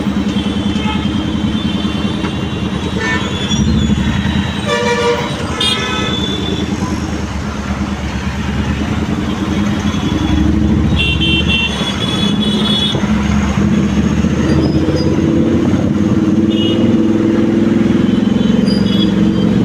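Busy road traffic: a steady drone of vehicle engines, with horns honking several times, in short toots and a longer blast of about two seconds.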